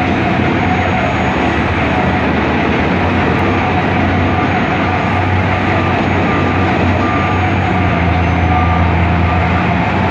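Heavy diesel construction machinery running, led by a Liebherr 984 crawler excavator's engine as it digs and loads a dump truck: a steady low engine drone with a noisy mechanical background, swelling a little near the end.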